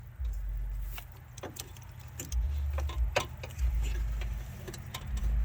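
Irregular metallic clinks and knocks of hand tools and bolts being worked on a truck door's window regulator, over a low, intermittent rumble.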